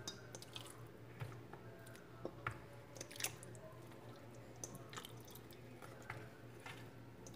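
Raw chicken pieces being set by hand into a pan over sliced onion rings: faint, scattered soft wet squishes and light taps. A low steady hum runs underneath.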